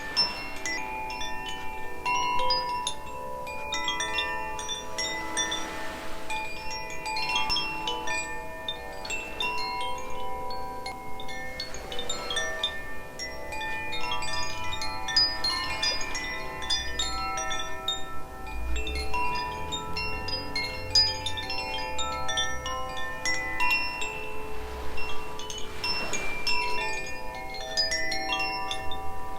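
Two Koshi chimes, Aria and Ignis, rung together. Their tuned rods ring continuously in many overlapping bell-like notes, each struck note ringing on as new ones are struck.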